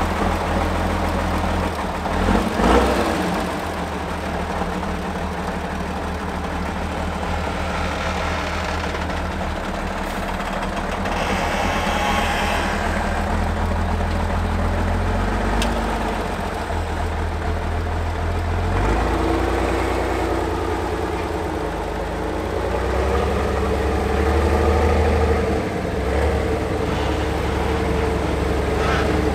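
Diesel engine of a six-wheel-drive trial truck running at low revs under load as the truck crawls over mud mounds. There is a brief louder burst about two seconds in, and the engine rises in pitch a few times in the second half.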